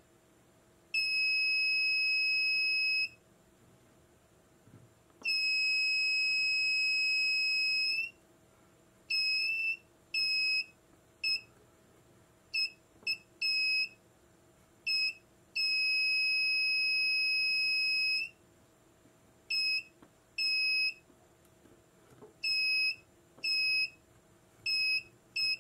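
Inductive short-circuit locator beeping with a high tone as its probe is swept along a circuit-board trace. It sounds while the probe is over the line carrying the short-circuit current and stops when it moves off, giving three long beeps of two to three seconds and many short ones.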